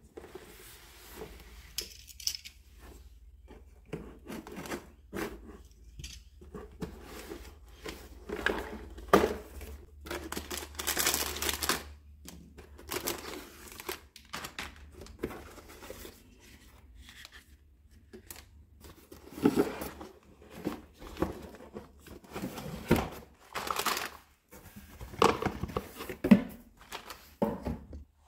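Unboxing a plastic toy set: a cardboard carton handled and opened, clear plastic packaging bags crinkling and tearing, and hard plastic parts knocking together. The sounds come in irregular rustles and sharp clicks.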